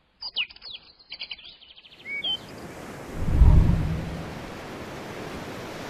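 Small birds chirping rapidly for about two seconds. Then a steady hiss of sea surf, with a low rumble that swells and fades about halfway through.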